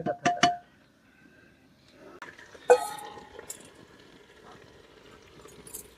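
A steel ladle strikes the rim of a metal pressure cooker with one sharp clink that rings briefly, about three seconds in, while mutton curry with potatoes is stirred. Faint scraping and small clicks of the ladle in the pot follow. Background music fades out at the very start.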